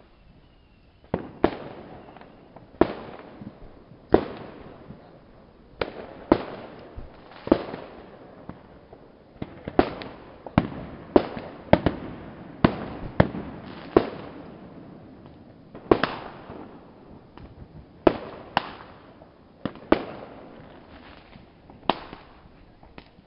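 Aerial firework shells bursting in a long, irregular series of sharp bangs, one or two a second. Each bang trails off in a short echo.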